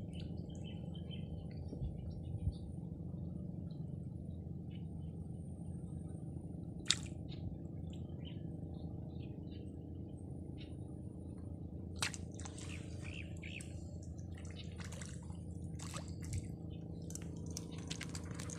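Steady low background rumble, with a sharp click about seven seconds in. In the second half a run of small water splashes and clicks as a hooked fish thrashes at the pond surface.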